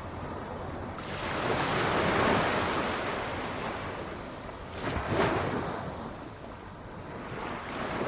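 Small waves breaking gently on the shore of a flat calm ocean. One wash of surf swells up about a second in and fades over a few seconds, and a sharper break follows about five seconds in.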